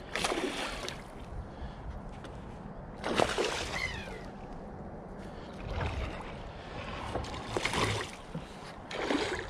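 A hooked pike thrashing at the water's surface beside the boat, several short bursts of splashing a second or two apart.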